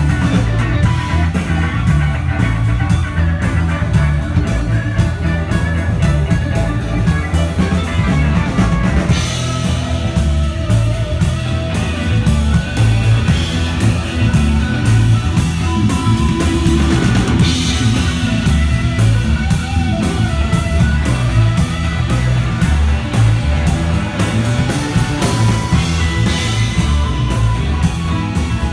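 Rock band playing with guitar and drum kit, driven by heavy low notes and a steady beat of cymbal strikes.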